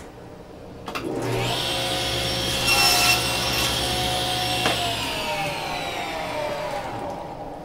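A table saw is switched on about a second in and runs with a steady whine. There is a louder stretch about three seconds in as the blade crosscuts the end of a wood strip on a sled. The motor is switched off about five seconds in, and the pitch falls as the blade spins down.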